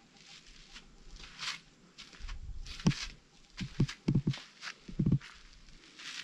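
Footsteps scuffing along a dirt forest path, with a run of heavier thumps from about three to five seconds in.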